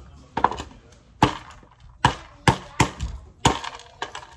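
A mallet striking walnuts on a wooden stool top, cracking their shells: about seven sharp knocks at an uneven pace.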